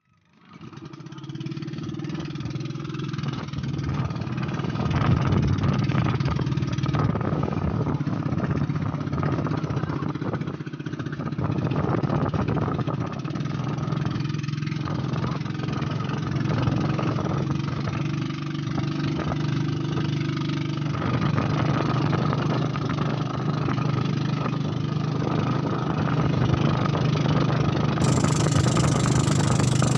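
Outrigger pump boat's engine starting up and running steadily as the boat gets under way, growing louder over the first few seconds, with water and wind noise beneath it.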